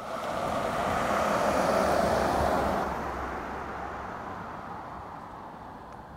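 A car driving past: its road and engine noise swells to a peak about two seconds in, then fades slowly as it moves away.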